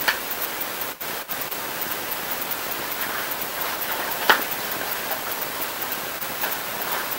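Steady hiss of background noise, with a sheet of paper being picked up and handled: brief paper crackles just after the start and a sharper one about four seconds in.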